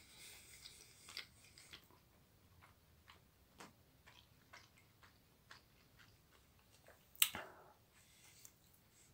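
A person chewing a sandwich of bread and mascarpone, with soft mouth clicks about twice a second. About seven seconds in there is a louder bite into the sandwich.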